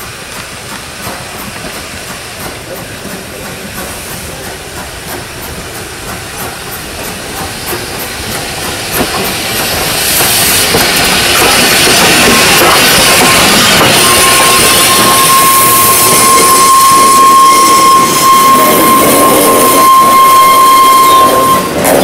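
Strasburg Rail Road No. 90, a 2-10-0 steam locomotive, approaching and passing close with a freight train, the sound of the engine, rods and wheels on the rails growing steadily louder. About two-thirds of the way in, a steady high-pitched squeal rings for about eight seconds as the train goes by.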